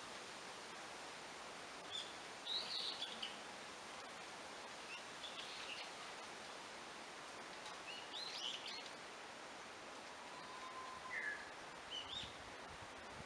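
Forest ambience: a steady hiss of background noise with short, high bird chirps and twittering calls coming every few seconds, the busiest about a second in and around eight seconds in.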